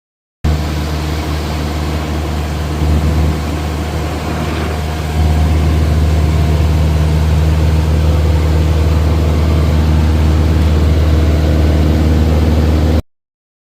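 Light aircraft engine running steadily: a loud low drone with a constant hum that steps up in level about five seconds in, then cuts off suddenly near the end.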